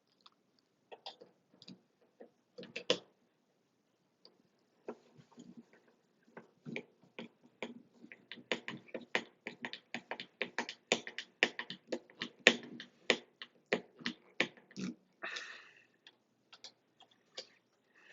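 Small sharp clicks and light taps of shower-faucet trim parts being fitted together by hand, scattered at first, then a quick irregular run of them from about five seconds in to near the end.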